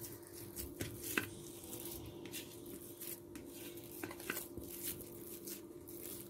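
Hands kneading a soft, crumbly dough on a stainless steel plate: faint, irregular squishing and rubbing, with light taps of fingers and dough against the metal.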